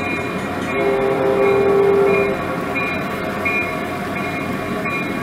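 Model diesel locomotive sound: one horn blast about a second and a half long, starting a little under a second in, over the steady engine sound and a faint regular ringing.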